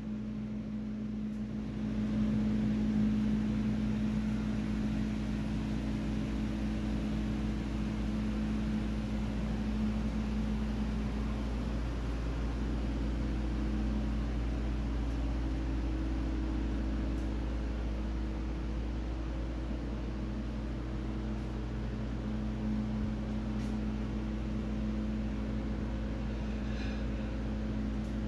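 Steady low mechanical hum with a constant drone and an even hiss, unchanging throughout.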